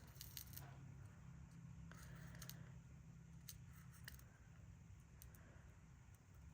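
Faint, scattered small clicks and taps of beads and cord being handled while stringing seed beads onto a strand, over a low steady room hum.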